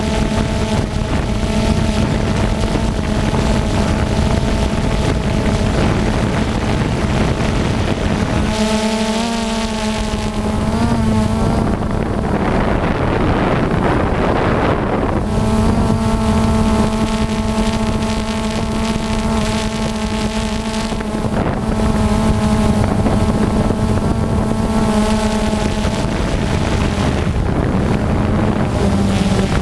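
FPV quadcopter's brushless motors and propellers humming steadily as it flies, with wind rushing over the onboard microphone. About a third of the way in, the pitch wavers and the hum drops away for a few seconds, leaving mostly rushing air, then comes back.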